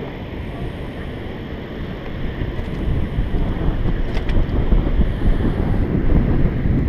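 Wind buffeting the microphone as a dense low rumble, growing louder about two and a half seconds in, over choppy river water against a boat hull. Two faint clicks about four seconds in.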